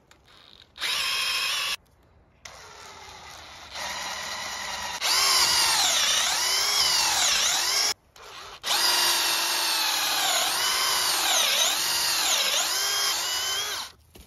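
Cordless drill boring a large bit into the end grain of a green white birch log: a motor whine in several runs, a short one first, then two long ones with a pause between, its pitch sagging again and again as the bit bites in.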